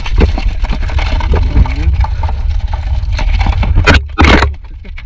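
Live blue swimming crabs clicking and scraping their shells and legs against each other and the sides of a plastic tub, over a steady low rumble. Two loud scraping rustles come around four seconds in.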